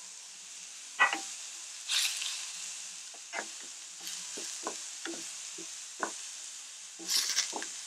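Ribeye steak searing in hot oil in a pan: a steady sizzle with scattered sharp pops and crackles. The sizzle flares louder once garlic cloves drop into the oil about a second in.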